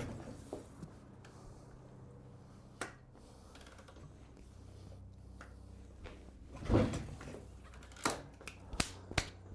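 Handling noises with no engine running: a light knock, a heavier thump about seven seconds in, then a quick run of sharp clicks near the end, over a faint low hum.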